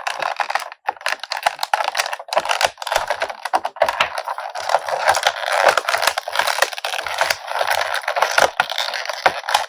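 Plastic action-figure packaging being handled and pulled apart: continuous crinkling and crackling with many small clicks as the figure is worked free of its tray.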